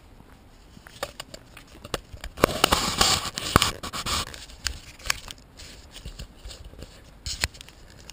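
Footsteps while walking, with scraping and rustling handling noise on the camera. The scraping is loudest in a dense stretch about two to four seconds in, with scattered clicks and taps before and after.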